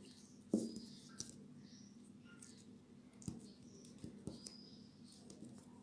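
Paper being handled and pressed with a glue stick on a plastic-covered table: light rustling and a few soft knocks, the loudest about half a second in.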